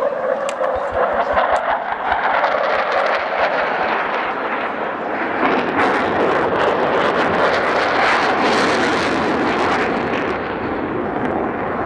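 Loud, steady jet noise of a pair of F-16 fighters on a low pass.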